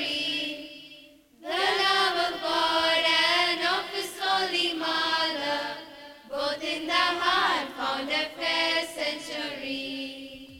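Mixed choir of teenage boys and girls singing a hymn together, breaking off briefly between phrases about a second in and again near the six-second mark.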